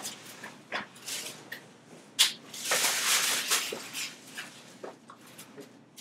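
Patient shifting onto his side on a chiropractic treatment table: a sharp click about two seconds in, then about a second of rustling, with small scattered knocks.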